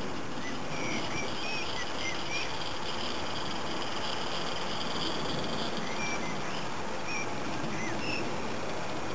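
Small birds chirping in short calls, a cluster in the first couple of seconds and more about six to eight seconds in, over a steady hiss.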